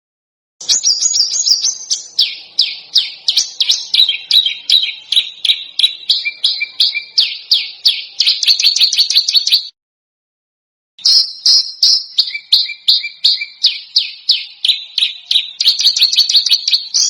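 Small songbird giving rapid, harsh, sharp repeated notes, several a second: a masteran recording of dense, rough screeching 'shots'. The notes come in two long runs, broken by a short dead-silent gap about ten seconds in.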